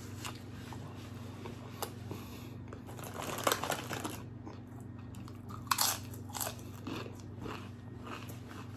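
A person biting into and chewing birria tacos close to the microphone, with crunching bites, the loudest a little past three seconds in and again near six seconds. A steady low hum sits underneath.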